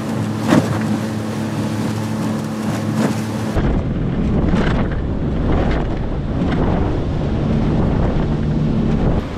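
Mercury outboard motor running steadily at speed on a jon boat. From about three and a half seconds in, wind rumbles on the microphone and the hull slaps the water about once a second as the bow keeps lifting: the boat is porpoising, with the motor mounted too high.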